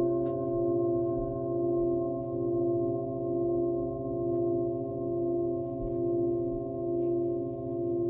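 Several hammered metal singing bowls ringing on together: a sustained blend of steady tones at several pitches, wavering in a slow pulse about once a second.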